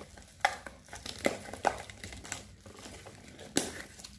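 Plastic shrink-wrap crinkling and crackling as it is peeled by hand off a cardboard product box, in irregular sharp crackles, the loudest one near the end.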